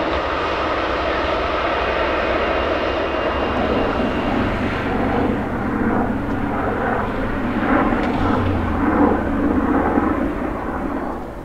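Jet airliner engines, on a WestJet Boeing 737-800 with its CFM56 turbofans, running loud. The higher hiss falls away about halfway through, and the sound drops off near the end.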